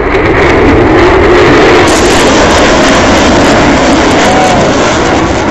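Very loud jet noise from an F-22 Raptor's twin turbofan engines as it passes low overhead. A wavering tone runs under it, and the noise eases off slightly near the end.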